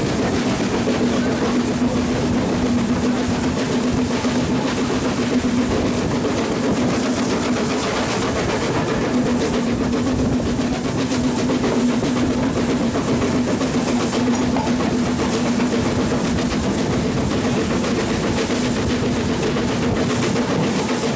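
BR Standard Class 4 steam locomotive running along the line, heard from beside the cab: a steady rumble of wheels and motion on the track with a constant hum.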